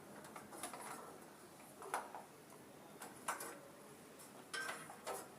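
Scattered sharp clicks and light taps, about four or five over a few seconds, from small tools and wiring hardware being handled while connecting battery and charge-controller cables.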